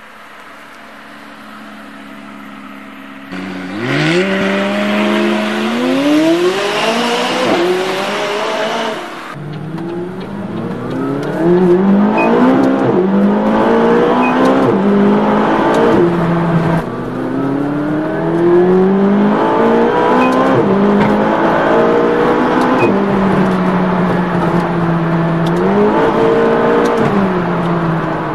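McLaren 570GT's twin-turbo V8 heard from inside the cabin under hard acceleration. After a few quieter seconds it suddenly gets loud, and the engine note climbs steeply and drops back at each upshift, again and again through the gears.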